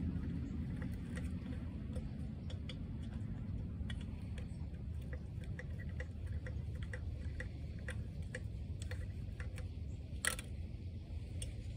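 Small metallic clicks, a few a second and unevenly spaced, from a hand tool working the bolts of a small manifold on a Wisconsin V4 engine, with one louder metal clank about ten seconds in, over a steady low rumble.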